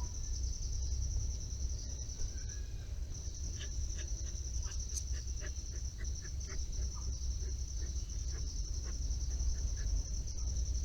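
Steady high-pitched insect trill, typical of crickets, over a constant low background rumble, with a run of short faint clicks or chirps around the middle.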